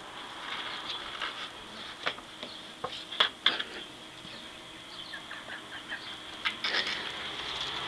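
A kitten's claws scratching and scrabbling on a cardboard pizza box lid as it rolls and paws, in irregular short scrapes and taps, over a faint steady high-pitched hum.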